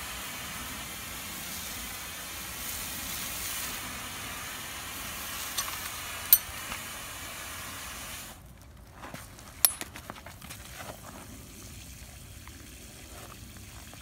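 Water jet hissing from a 1.5-inch wildland firefighting hose nozzle, stopping abruptly about eight seconds in. A few sharp clicks come before and after the stop, followed by quiet handling sounds.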